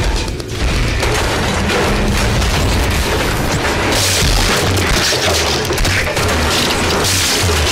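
Loud, continuous booming din with music mixed in, heavy in the bass and dense across all pitches, starting about half a second in.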